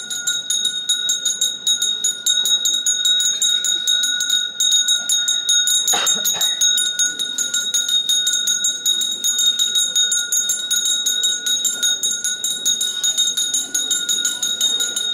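Metal ritual bells rung rapidly and continuously: a steady high ringing driven by fast, even strikes, with one brief louder sound about six seconds in.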